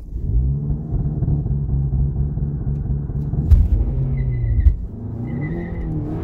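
Stage 2 tuned Audi A3's turbocharged engine revved up and held at steady high revs for about four seconds for a standing-start launch. The revs then dip and climb again as the car pulls away, with a high whistle coming and going near the end.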